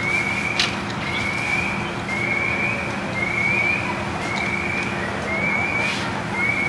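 Steady low engine drone with a short, slightly rising high chirp repeating about once a second over it.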